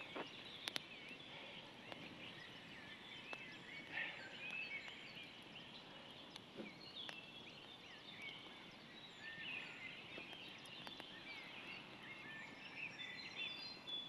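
Faint songbirds chirping and singing, many short overlapping chirps and trills, with a few soft crackles from a burning wood campfire.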